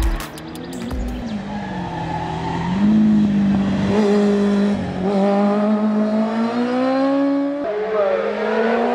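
Kawasaki ZXR inline-four sport-bike engine revving hard under race load, its pitch climbing and falling as the rider works the throttle and gears, with sudden pitch drops about five and nearly eight seconds in.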